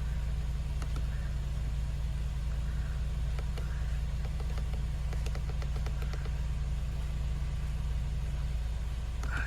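Mercedes-Benz B-Class (W246) engine idling steadily, just restarted after an auxiliary battery replacement.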